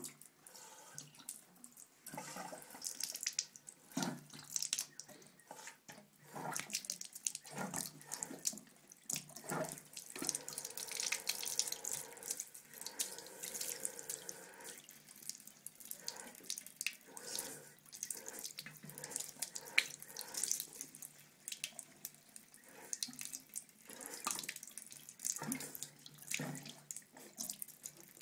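Thin stream from a bathroom sink tap running into the basin, broken into irregular splashes as a cat paws at the flow.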